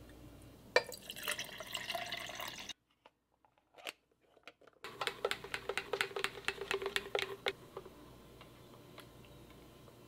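Liquid poured into a cup, then after a short break a run of quick clicks and scrapes, about four or five a second, as a straw is worked and stirred in a lidded plastic tumbler of coffee and boba pearls.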